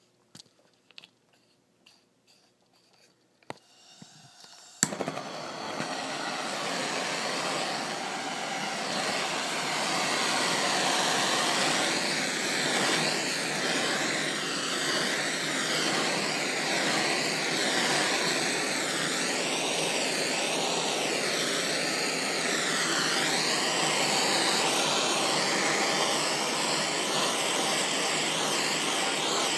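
Blowtorch lit with a sharp click about five seconds in, then its flame running steadily, the rushing tone slowly shifting as the flame is swept over wet epoxy resin to pop surface bubbles.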